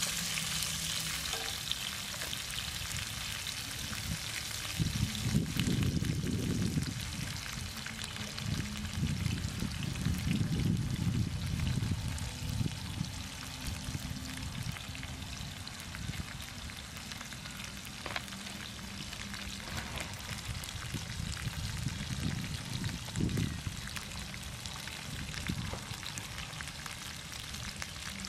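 Tofu cubes frying in oil in a pan on a portable gas stove, a steady sizzle. Low rumbles come and go a few times.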